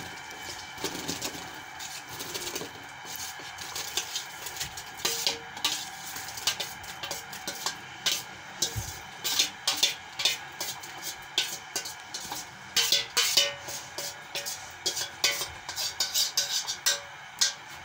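Steel strainer clinking and scraping against the rim of a steel pressure cooker as soaked sabudana is emptied into it: many short, irregular metallic clicks, coming thickest in the second half.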